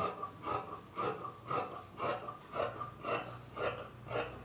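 Large tailor's shears cutting through trouser fabric, a steady run of crisp snips about two a second.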